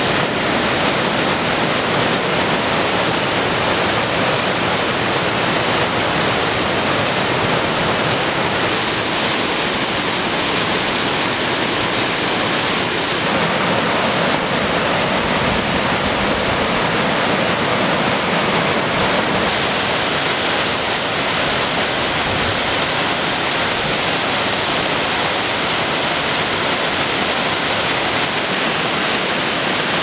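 Mountain creek swollen with spring runoff, rushing over small waterfalls and rocky cascades: a loud, steady rush of water, its tone shifting a little a few times.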